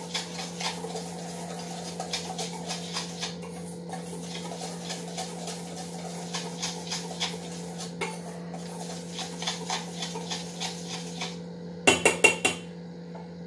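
Wire whisk stirring a dry flour mix in a stainless steel bowl, its wires ticking and scraping against the metal in quick light strokes. About twelve seconds in come a few louder clinks of the whisk against the bowl.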